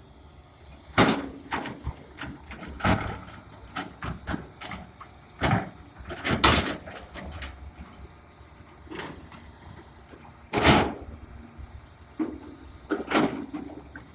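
John Deere excavator at work moving dirt: a string of irregular clanks and knocks from the bucket and arm, the loudest about ten seconds in.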